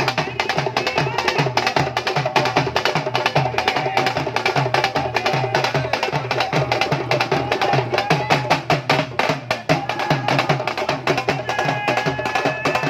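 Dhol drum played fast over a recorded song: dense sharp cracks on top of regular deep thumps, with the song's melody line running above.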